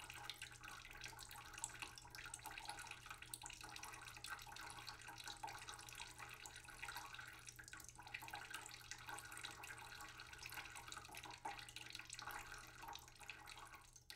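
Faint, steady trickling water, full of small crackles, over a low steady hum.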